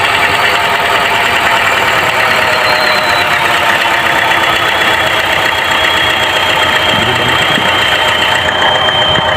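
Chevrolet Trax engine idling with a misfire on all cylinders, with a faint high whine that slowly drops in pitch. The misfire goes with low compression on every cylinder and heavy blow-by.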